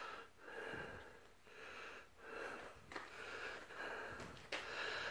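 Quiet, quick breathing close to a phone microphone, a soft swell of breath a little under a second apart, with one small click about four and a half seconds in.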